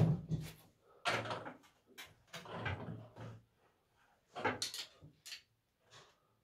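A series of irregular knocks and clatters, like things being handled and set down, dying away near the end.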